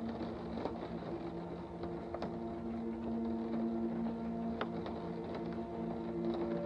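Ambient music: a slow drone of held, overlapping tones whose chord shifts gradually, with a few faint ticks.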